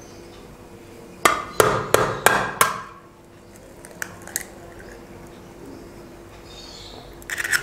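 A raw egg being cracked: about five sharp taps against a hard edge in quick succession, then a couple of small clicks as the shell is pulled apart over the tin. Another short run of taps comes near the end.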